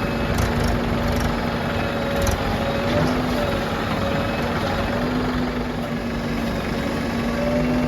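Diesel engine of heavy earthmoving machinery running steadily at a constant pitch, with a slight waver in its hum.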